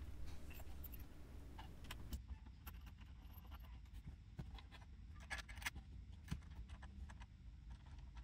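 Small metal chains and hooks clinking and jangling as they are hooked between a wooden bed frame's leg braces and the floor tie-down hooks: faint, scattered light clicks.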